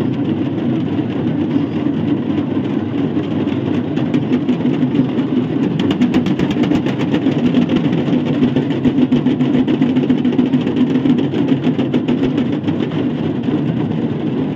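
Dense, steady din of a large packed crowd, with no single voice standing out.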